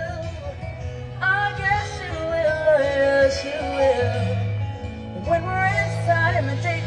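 Live band playing amplified through a stage sound system, with a singer's sliding vocal runs over sustained bass notes; the bass shifts to a new, stronger note about four seconds in.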